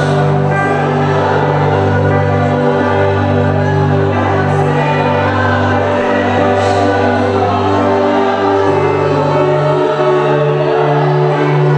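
Gospel music with a choir singing over long held chords.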